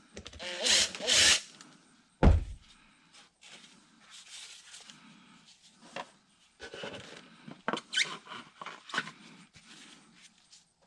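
Air filter parts and a mounting screw being handled: two short rustles near the start, a single dull thump about two seconds in, then scattered light clicks and rustles.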